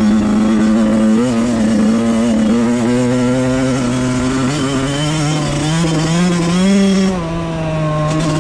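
Suzuki RM 85's single-cylinder two-stroke engine running under throttle on the move, its note climbing slightly before easing off about seven seconds in.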